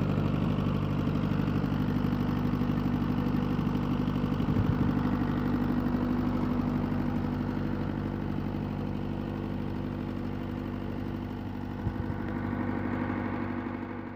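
Trailer-mounted diesel engine idling steadily, its even low running note unchanged throughout and a little quieter in the second half. A single short click about twelve seconds in.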